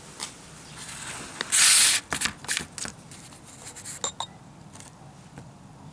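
An old cartridge oil filter and its metal housing cap being handled on cardboard. There is a short rustling scrape about one and a half seconds in, then a few light clicks and knocks as the filter is picked up and turned in the hands.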